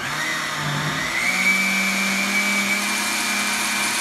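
Countertop blender running on a thick pancake batter of cottage cheese, eggs, flour and milk: the motor's pitch rises over about the first second as it comes up to speed, then holds steady with a high whine.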